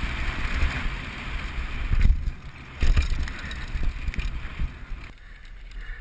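Wind rushing over a helmet-mounted camera and the mountain bike's tyres on a dirt trail, with several thumps as the bike hits bumps. The rushing drops away abruptly about five seconds in.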